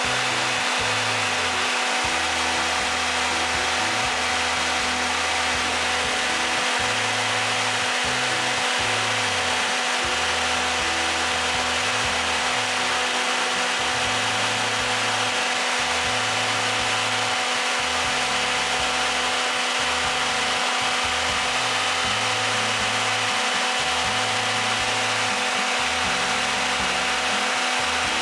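Electric radiator fan motor, the genuine unit fitted with a seven-blade fan, running steadily with an even whirring hum and a rush of air.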